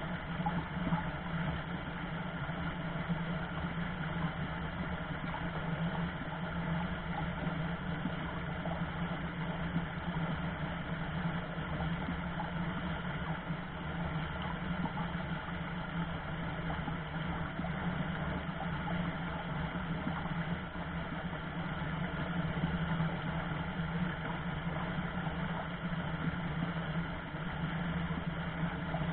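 Shallow mountain stream rushing steadily over rocks, a constant, even rush of water.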